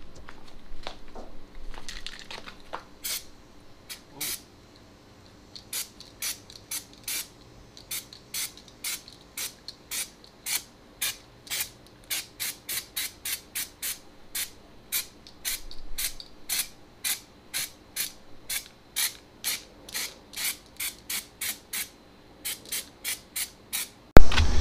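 Aerosol can of 2K Raptor bed liner coating spraying in short, quick bursts, about two a second, with fainter hiss in the first few seconds.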